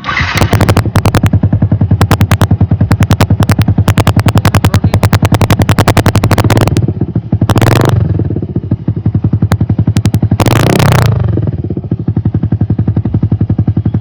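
Yamaha R15 V2's single-cylinder engine starting and idling through a loud aftermarket exhaust with no dB killer fitted, its exhaust pulses rapid and even. The throttle is blipped twice, at about halfway and about three quarters of the way in, each rev rising and falling back to idle.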